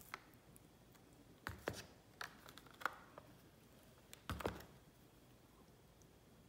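Metal spoons scraping and clinking against each other, a ceramic bowl and a plastic tub while sticky miso paste is scooped and pushed off a spoon. Faint, with a handful of short scrapes and taps; the loudest come about a second and a half in and again around four and a half seconds.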